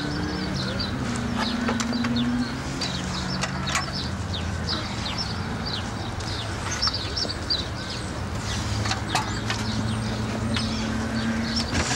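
Small birds chirping in quick short calls over a low steady hum, with a few sharp clicks.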